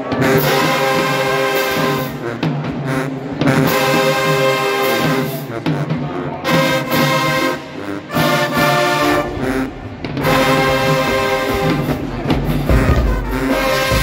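Marching band brass section of sousaphones, trumpets and trombones playing loud sustained chords in phrases of about two seconds with short breaks between them. A low drum rumble joins about nine seconds in.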